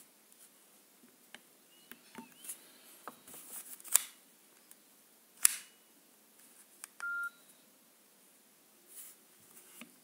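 A Nokia 2220 slide phone being handled and its keys pressed: a scatter of small clicks from the keys and casing, the two loudest about four and five and a half seconds in. A short single beep from the phone comes about seven seconds in.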